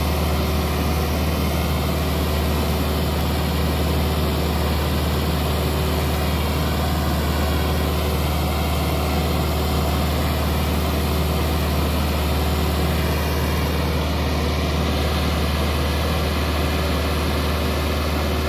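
New tractor's engine running steadily under load as it pulls a tined tillage implement through the soil during its running-in. The engine note holds an even pitch and level, with no revving or gear changes.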